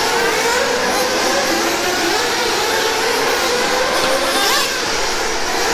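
Several nitro-powered RC car engines running hard around a track, their high whines rising and falling as the cars accelerate and lift off. One climbs sharply in pitch near the end.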